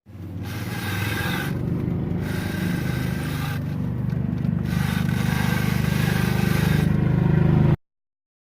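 Polaris UTV engine running under low-speed load with its CVT drive belt making a high squealing, ringing scrape that comes and goes, dropping out twice for about half a second. The sound is typical of belt scrubbing in the stock BOSS secondary clutch, whose inner sheave vibrates on the transmission input shaft. The level creeps up gradually, then the sound cuts off suddenly near the end.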